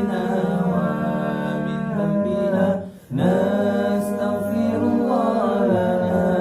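Nasyid vocal group singing a cappella, long held notes of an Islamic istighfar chant in harmony, with a short break about three seconds in before the voices come back.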